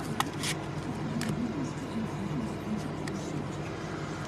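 Trading cards and clear plastic card holders handled and sorted by hand: a few short clicks and rustles in the first second or so, then quieter shuffling.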